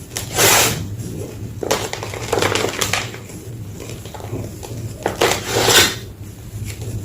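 Slabs of gym chalk being crushed, crunching in about four separate bursts with pauses between them. A steady low hum runs underneath.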